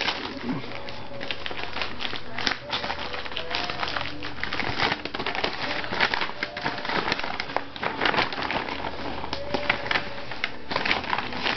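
White plastic USPS mailer crinkling and rustling as it is handled and torn open, a dense run of irregular crackles.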